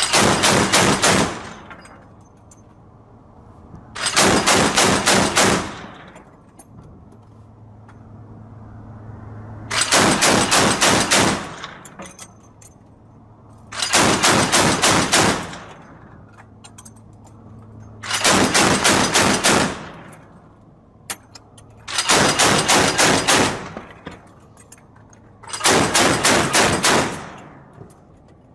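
Mk38 mount's M242 Bushmaster 25 mm chain gun firing on automatic in seven short bursts of rapid shots, each about a second and a half long, about four seconds apart.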